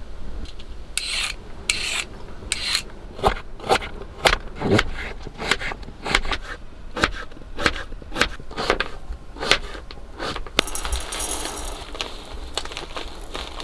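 Kitchen knife slicing a zucchini on a plastic cutting board: a run of short sharp cuts, about two a second, after a few longer scraping strokes at the start. Near the end, dry rice pours into an enamel mug with a hissing rattle.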